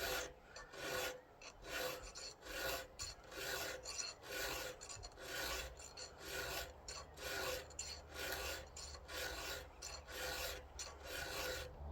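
A 7/32-inch round chainsaw file rasping across the chain's cutter teeth in steady, even strokes, about two a second.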